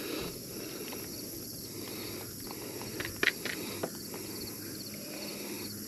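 Steady outdoor background with insects chirping, and a few light clicks a little after three seconds in as hands work a fishing hook out of a fish's mouth in a landing net.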